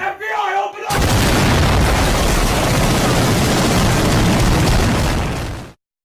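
A brief shouted voice, then about a second in a loud explosion sound effect that fills the whole range of pitch for nearly five seconds and cuts off suddenly.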